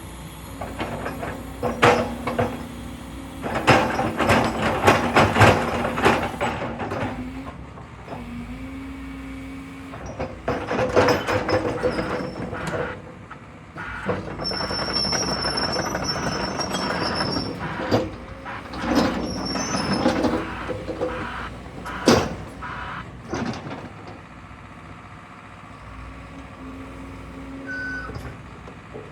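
JCB 220X LC crawler excavator's diesel engine and hydraulics working through operating movements. The machine rises into three longer stretches of louder, rattling work, with sharp metallic clanks among them, and eases back to a steady run in between. A faint high squeal runs for several seconds in the middle.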